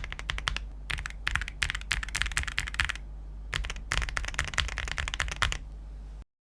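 Typing on a mechanical keyboard fitted with ceramic keycaps: quick runs of keystrokes in bursts with short pauses. It cuts off abruptly about six seconds in.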